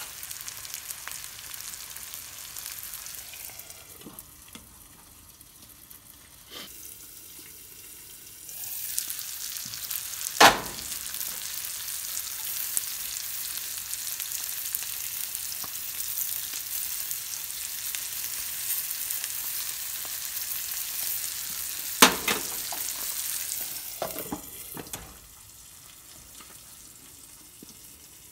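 Eggs and diced ham sizzling in a nonstick skillet on a gas burner, the sizzle swelling and dropping away. Two sharp knocks stand out, about a third of the way in and again later; the sizzle goes quieter near the end once a glass lid covers the pan.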